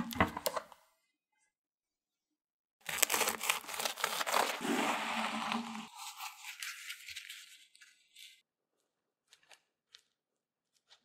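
Dry crackling and crumbling close to the microphone, as crumbly food is handled: a short cluster of crackles at the start, then a dense burst of crackling for about three seconds that thins to light crackles, and a few faint ticks near the end.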